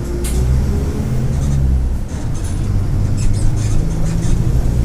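Mercedes-Benz OF-1722M bus's turbodiesel engine running under load. The engine note climbs slightly, dips briefly about two seconds in, then picks up again, with light rattles over it.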